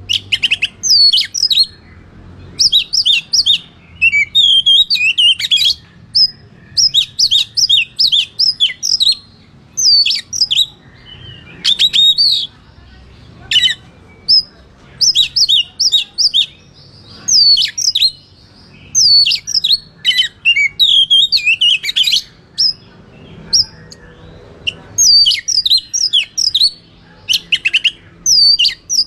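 Oriental magpie-robin (kacer) singing a loud, aggressive fighting song: rapid phrases of sharp, sweeping whistled notes with short pauses between them, the kind of song used as a lure to rile up other magpie-robins.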